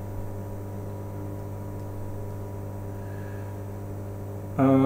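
Steady electrical hum from a bench power supply loaded by a 12-volt car amplifier running a 1 kHz test sine at full output. A voice starts near the end.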